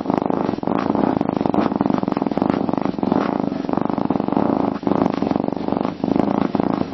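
Domestic cat purring close to the microphone: a steady, rapid rumble with brief dips in level every second or so.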